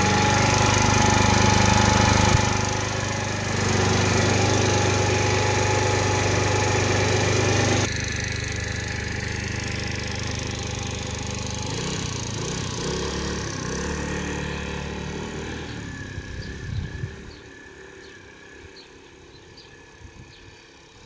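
Small moped-style scooter engine running close by, dipping briefly about two seconds in. It is then heard farther off, revving up and down as the scooter is ridden away, and fades out. The engine tends to cut out and runs better at idle than under way, which the owner suspects is the carburettor.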